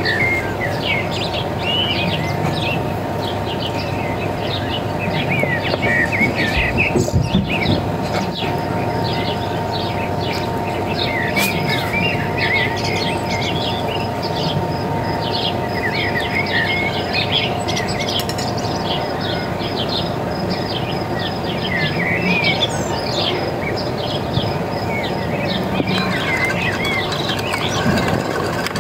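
Birds chirping throughout, many short calls overlapping, over a steady hum.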